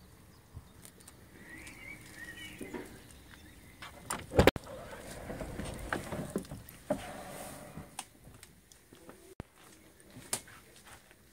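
Scattered knocks, clicks and rustling as someone steps into a motorhome through its entry door, with one loud thump about four and a half seconds in.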